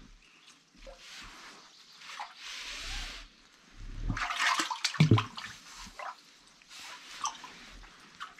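Water sloshing and splashing in a well as a fishing magnet on a rope is jerked about at the surface, in several short bursts, with a sharp knock about five seconds in.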